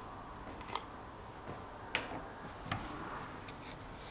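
Three sharp plastic clicks and taps as the cap is twisted off a quart bottle of motor oil and the bottle is handled over a funnel.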